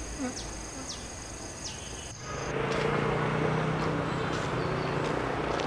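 Insects chirping with a steady high buzz for about two seconds, then an abrupt change to steady street traffic noise with a low engine hum.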